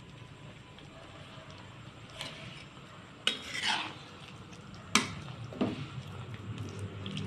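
A stainless metal ladle stirring coconut-milk vegetable stew in a metal pot. It knocks against the pot a few times, and about three seconds in a knock runs on into a short scrape along the side. The sharpest knock comes about five seconds in.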